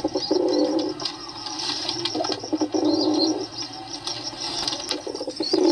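Pigeons cooing: a run of low, throaty coos one after another, with faint high chirping above them.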